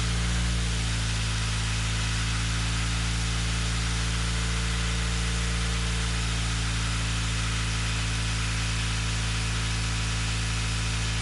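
Turbocharged Nissan Micra engine idling steadily, heard at the exhaust tailpipe, on a cold start with oil-flooded cylinders just cleared after the oil rings on cylinders 1 and 4 failed.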